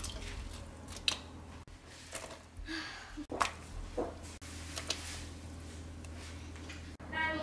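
Broth ingredients (dried anchovies, kelp, dried shiitake and a whole onion) being dropped and set into a stainless steel stockpot of water: a few scattered soft splashes and light knocks over a steady low hum.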